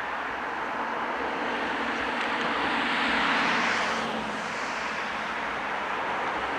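A vehicle passing by. A steady rushing noise swells to a peak about three seconds in and fades again, with a low hum that drops slightly in pitch as it goes past.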